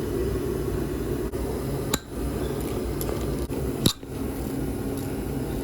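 Hand tools clinking against metal while the cylinder head of a 1995 Honda CR125R's two-stroke engine is being removed. There are two sharp knocks, about two seconds in and a louder one near four seconds, over a steady low hum.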